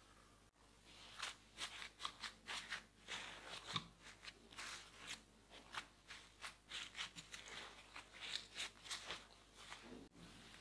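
Paper towel crinkling and rustling as it is pressed onto soaked waffle-cut potato slices in a wire fry basket to blot them dry: a faint, irregular run of many small crisp crackles.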